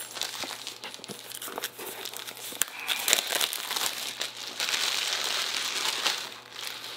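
Cellophane wrap being peeled and torn off a box, crinkling and crackling with sharp clicks, then a longer stretch of steady crinkling near the end.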